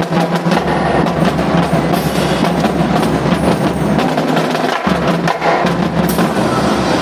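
A marching drumline of snare drums, tenor drums, Pearl bass drums and hand cymbals playing a fast, dense rhythm of rapid strokes. It stops right at the end.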